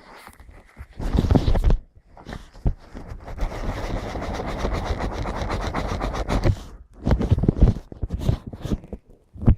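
Close handling noise of a camera while its lens is wiped with a cloth: a steady rubbing from about three seconds in until nearly seven, with bumps and knocks before and after it.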